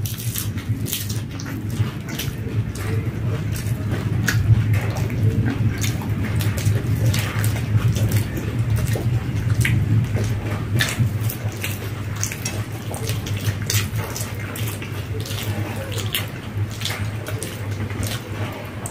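Wet chewing and mouth-smacking of two people eating doi fuchka, yogurt-filled puffed puri shells: a stream of small wet clicks and squelches over a steady low hum.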